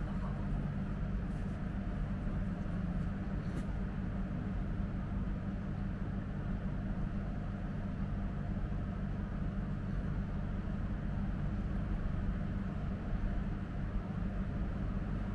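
A steady low machine hum with no distinct events.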